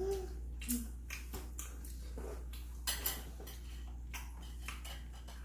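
Tableware clinking during a seafood meal: spoons, chopsticks and shells knocking against bowls and dishes, with a few sharp clicks about three seconds in, over a steady low hum.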